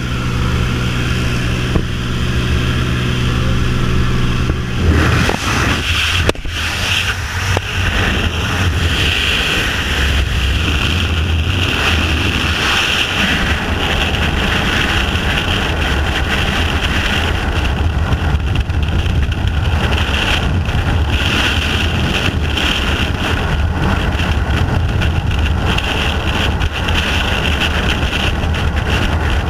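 A small plane's engine drones steadily through the open door. About five seconds in, it gives way to a loud, steady rush of freefall wind over the camera microphone.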